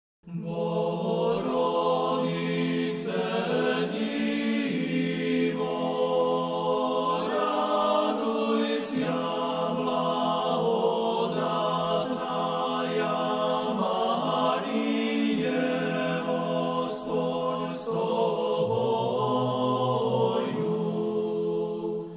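Greek Catholic liturgical chant sung unaccompanied by a group of voices in harmony, with slow, held notes.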